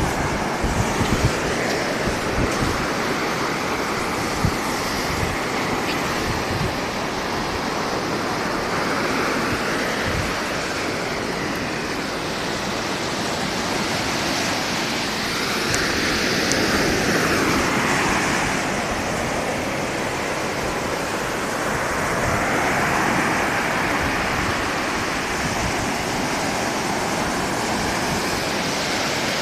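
Ocean surf washing onto the beach, a steady rush that swells and eases as waves break, with wind gusting on the microphone in the first few seconds.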